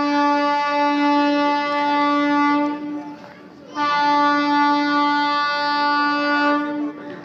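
An approaching train's horn sounding two long, steady blasts on one pitch, with a short gap between them.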